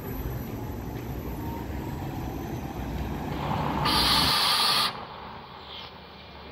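City bus driving past with low road rumble. About four seconds in comes a loud hiss of released air, bus pneumatics such as an air brake, which cuts off abruptly about a second later and leaves only faint street sound.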